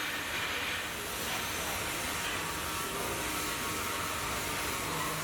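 Welding arc hissing and crackling steadily.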